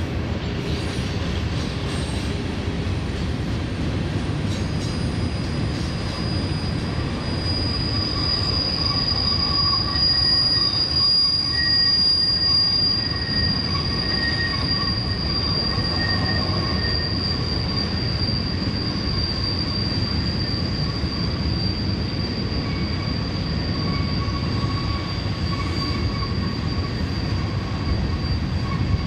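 Loaded hopper train rolling past with a steady low rumble. About five seconds in, a high steady wheel squeal rises over it and carries on, joined at times by lower squeal tones.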